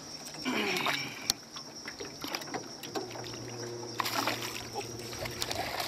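Water splashing at the side of a boat as a released peacock bass is let go and kicks away, with the loudest splashing about four seconds in, among small knocks.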